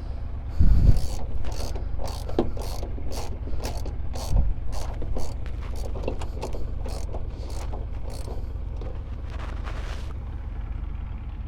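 Hand ratchet clicking in repeated short strokes, about two or three clicks a second, over a steady low hum, with a heavier knock or two in between.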